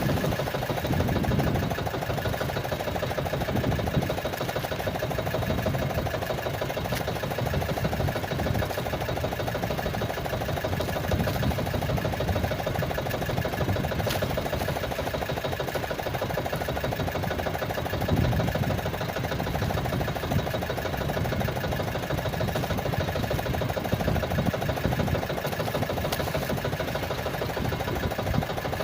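A small engine running steadily at an even speed, with a fast, regular beat and a few louder low swells now and then.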